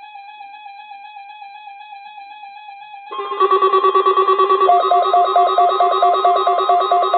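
RadioShack 12-258 weather alert radio sounding its alarm for a NOAA Weather Radio weekly test. A warbling electronic tone is joined about three seconds in by a much louder warbling alarm, then by rapid pulsing beeps, about four a second.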